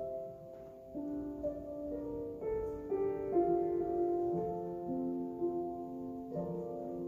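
Slow instrumental keyboard music: held chords that shift to a new chord every second or two. It is offertory music during the preparation of the gifts at Mass.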